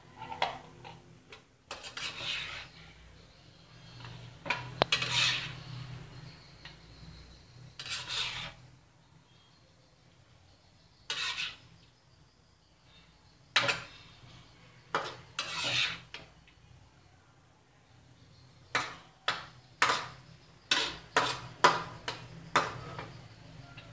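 A spatula scraping and knocking against a steel wok as stir-fried pineapple and beef are turned and scooped out into a bowl. It comes in irregular bursts with a couple of quiet pauses, and ends in a quick run of sharp knocks.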